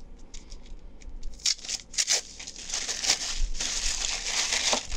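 Tissue paper crinkling and rustling as a small wrapped package is unrolled by hand: a few scattered crackles at first, then dense, continuous rustling from about a second and a half in.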